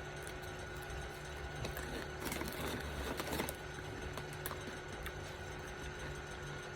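Faint crunching and clicking of crunchy tortilla chips being bitten and chewed, mostly about two to three and a half seconds in, over a steady low room hum.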